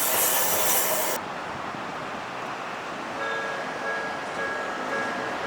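A loud rushing noise cuts off suddenly about a second in. About two seconds later an electronic level-crossing alarm on the Toden Arakawa Line starts sounding, a repeating ding at about two strikes a second.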